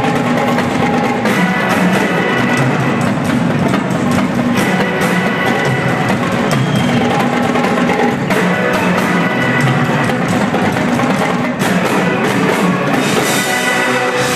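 Live rock band playing loudly, with a drum kit driving the beat under sustained guitar and keyboard tones, heard from the audience.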